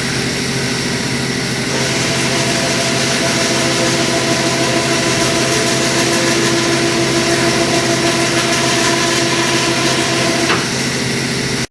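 A 12-volt electric winch motor running steadily with a whine as it works the trailer's dump bed. There is a click about ten and a half seconds in, and the sound cuts off suddenly at the end.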